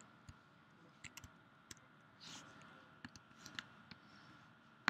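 Faint, irregular clicks of a computer keyboard and mouse, about a dozen light taps with a louder click near the end.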